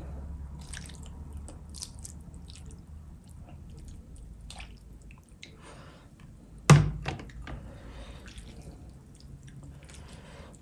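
Thick spicy gravy pouring from a glass bowl over whole cooked fish on a serving tray, with scattered wet drips, splats and small clicks. One loud, sharp knock about two-thirds of the way in, as the glass bowl is set down on the tray.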